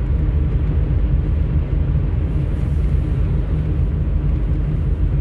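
Steady cabin noise inside a 1989 Mercedes 300SE cruising at about 65 mph: a low, even rumble of engine, tyres and wind.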